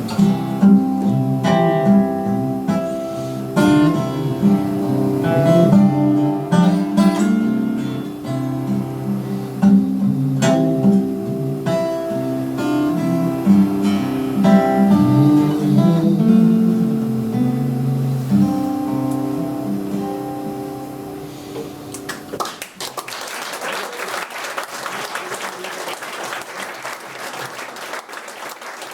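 Acoustic guitar playing the instrumental close of a folk song, ending about 22 seconds in, followed by audience applause.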